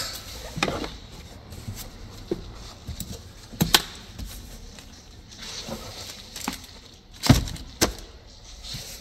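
Scattered knocks, taps and rustling as tools and papers are put back into a car's open plastic glove box, with two heavier thumps near the end.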